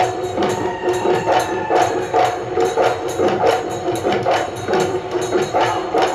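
Live Bihu husori music: dhol drums and taal cymbals beating a quick, even rhythm, several strokes a second, over held droning tones.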